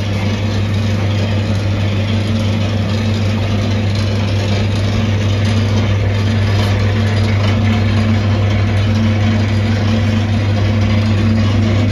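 Gas-fired rotisserie chicken grill running: a steady low hum under an even rushing hiss from the burners and spit drive.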